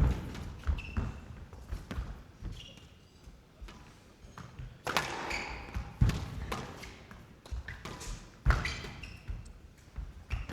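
Squash rally: the ball is struck by rackets and smacks off the court walls in hard, irregular knocks, the loudest about six and eight and a half seconds in, with short squeaks of court shoes on the floor between the shots.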